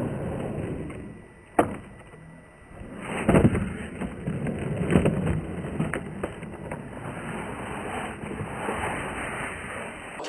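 Skateboard wheels rolling over rough concrete, a steady gritty rumble, with a sharp click about a second and a half in and louder knocks around three and five seconds in.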